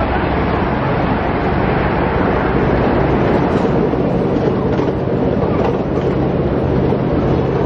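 Ride-on miniature train running along its track, heard from aboard: a steady rumble of wheels and cars with a low, even hum underneath.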